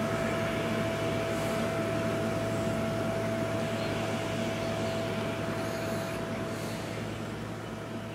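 EMD SW1200 switcher's diesel engine droning with a steady whine, slowly fading as the locomotive moves away.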